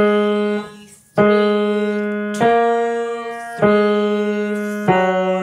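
Piano played slowly on the black keys: five single notes struck about a second apart, each held and fading before the next.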